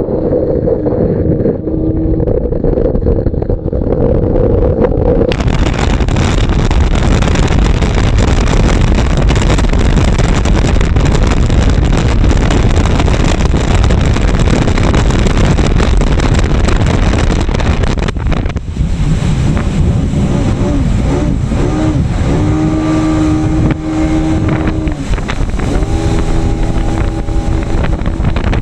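Yamaha jet ski engine running, muffled at first. After about five seconds a loud rush of wind and water on the microphone covers it. In the last third the engine's pitch rises and falls with the throttle.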